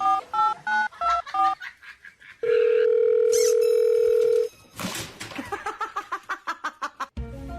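Telephone keypad tones: a few quick two-tone key beeps, then a steady tone held for about two seconds, followed by a fast run of short clicking beeps, about seven a second.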